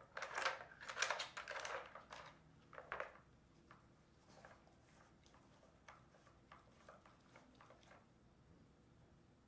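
Dog nosing and pawing at a plastic puzzle feeder toy: a rapid clatter of plastic pieces sliding and knocking, loudest in the first three seconds, then scattered lighter clicks.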